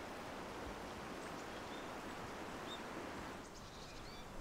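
Steady rushing of a river, with a few faint bird chirps over it. About three seconds in, the rushing drops away and only quieter outdoor ambience with faint chirps remains.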